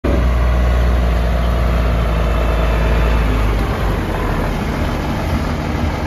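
Ford L8000 feed truck's engine running steadily and loudly, with a heavy low rumble, as the truck unloads feed down its side chute into a feed bunk.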